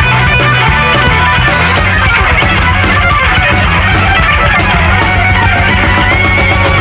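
Rock band music led by an electric guitar playing a lead line over bass and drums; one guitar note bends upward near the end.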